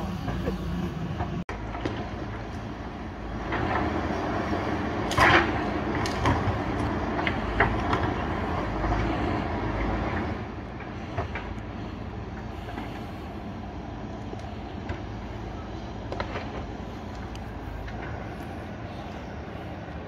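JCB backhoe loader's diesel engine running as it works soil and rock, with several sharp knocks and clanks between about 5 and 8 seconds in. From about 10 seconds in it drops to a quieter, steady engine note.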